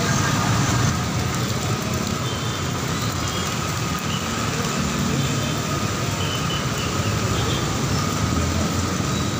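Heavy rain and road traffic on a wet city street: a steady rushing wash of rain and tyres on wet pavement, with vehicle engines rumbling underneath.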